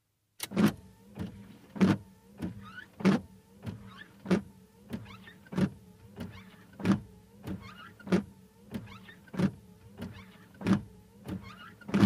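Car windscreen wipers starting up and sweeping steadily back and forth: the wiper motor hums, its pitch rising and falling with each sweep. A knock comes with each stroke, the louder ones about every 1.25 s with lighter ones between, and the blades squeak faintly between strokes.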